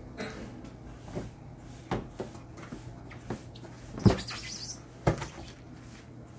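Hollow plastic knocks and thumps from a small child clambering on a plastic toy slide. The loudest bump comes about four seconds in, followed by a short sliding rush, and another thump comes a second later.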